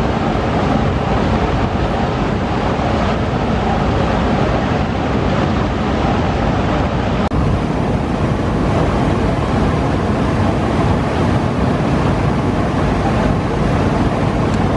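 Passenger river launch running at speed close by: a steady loud drone of its engines mixed with the rushing splash of the bow wave cutting through the water. The sound briefly drops out about seven seconds in.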